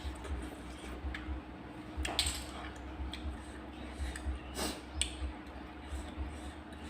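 Close-up eating sounds: wet chewing with scattered light clicks, two of them sharper, about two seconds in and again about four and a half seconds in.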